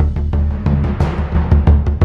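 Dramatic background music driven by rapid, heavy timpani-like drum hits.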